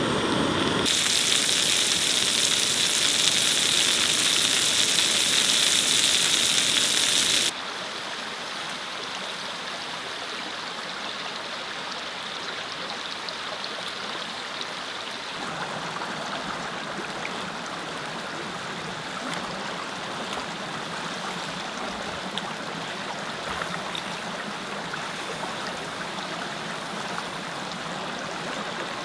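Mountain creek running steadily. It is loud and hissing for the first several seconds, drops abruptly to a softer, even rush about seven seconds in, and changes character again halfway through.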